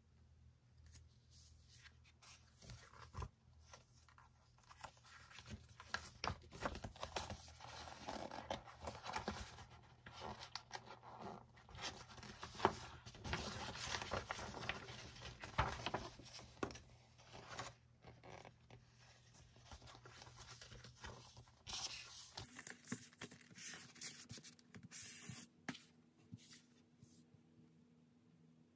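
Paper and plastic rustling and crinkling as album inclusions are handled and a folded paper poster is opened out, densest in the middle. Sparser taps and slides follow as glossy photocards are laid on a tabletop.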